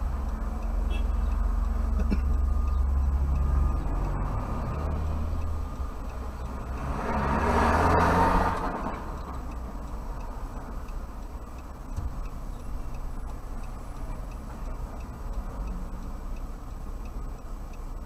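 City traffic heard from inside a car's cabin: a steady low engine rumble, and a vehicle passing close that swells and fades about seven to eight and a half seconds in.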